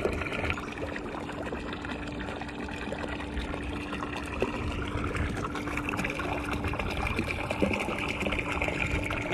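A 12-volt bilge pump is running in a swamped kayak, pushing a steady stream of water out of its side outlet, where it splashes and trickles into the water. A thin, steady hum goes with it and drops out for a moment about seven seconds in.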